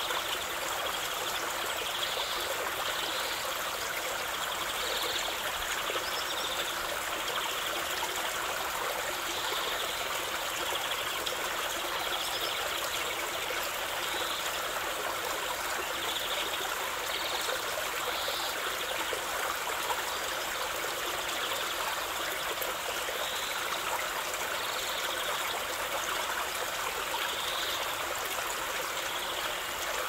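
A small stream spilling in a low waterfall over rock ledges into a pool: a steady rush of water with trickling and splashing.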